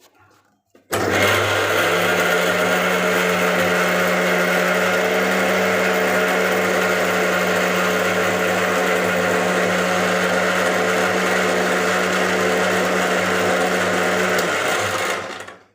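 Electric mixer grinder running, grinding coriander, green chillies, garlic, tomato and salt into a chutney. It switches on about a second in, runs steadily for about fourteen seconds, then winds down just before the end.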